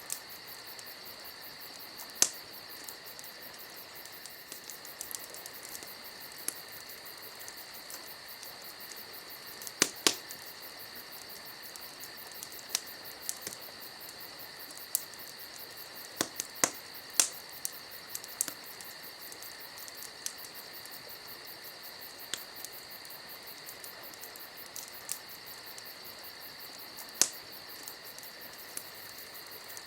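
Crickets trilling steadily, with irregular sharp pops and crackles from a burning campfire, the loudest pops about two, ten and seventeen seconds in.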